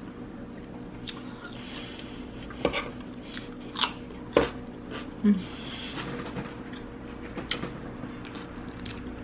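Soft mouth sounds and a few sharp clicks over a steady low hum, with one brief low vocal sound about five seconds in.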